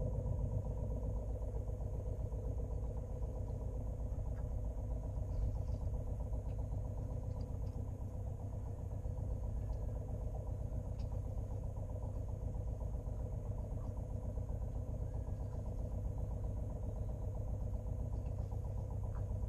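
Sailboat's auxiliary engine running steadily as the boat motors slowly under power with its sails furled; an even, pulsing engine note that holds without change.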